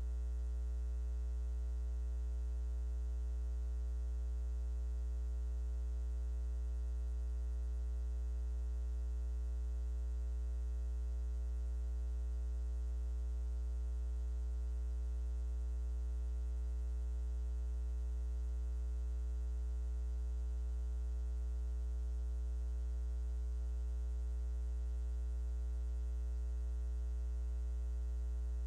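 Steady electrical mains hum, a low buzz with its overtones that holds one pitch throughout with nothing else heard: the sign that the microphone's sound has dropped out, leaving only hum on the audio line.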